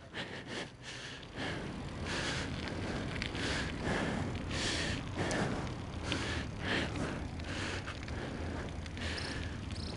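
Bicycle rolling across asphalt: a steady rolling noise with small clicks and rattles, broken by short puffs of rushing air noise.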